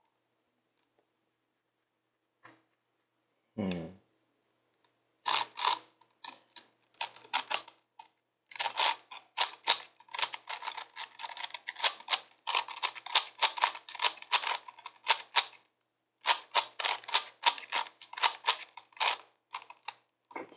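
A 5x5x5 Rubik's cube being turned by hand: rapid runs of plastic clicks and clacks as its layers are twisted. The clicking starts about five seconds in and pauses briefly near the three-quarter mark.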